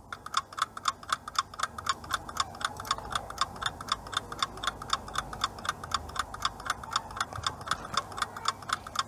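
Ticking clock sound effect for a countdown timer: fast, evenly spaced ticks counting down the ten seconds given to answer a quiz question.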